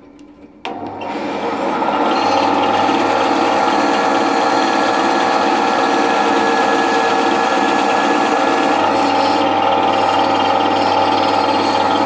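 Bandsaw switched on under a second in, coming up to speed within a second or so, then running steadily while a wooden blank is fed through the blade.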